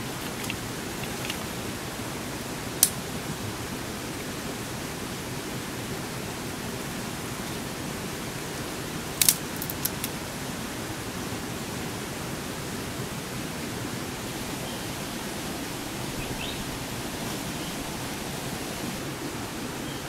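Dry twigs snapping by hand: one sharp snap about three seconds in, then a quick cluster of snaps around nine to ten seconds, over a steady outdoor hiss.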